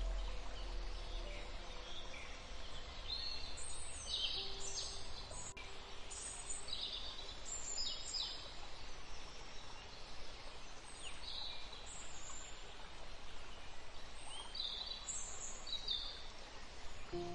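Outdoor ambience track: birds chirping in short, high, irregular calls over a steady hiss.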